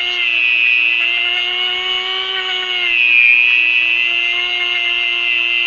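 Dremel rotary tool running at high speed with a steady whine, its pitch dipping briefly about three seconds in as it bears down on the metal, cleaning rust and pitting off a hydraulic ram part.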